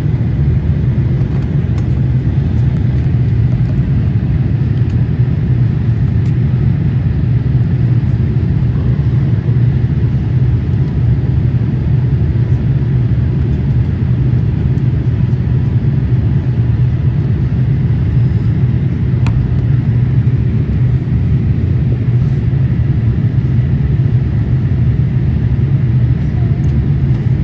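Steady low drone of a jet airliner's engines and rushing airflow, heard inside the passenger cabin during the descent.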